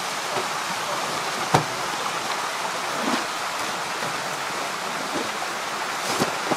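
Steady rushing noise like running water, with a few sharp slaps and knocks as water-filled plastic bags are shifted on a wet floor. The loudest knock comes about a second and a half in, another near the end.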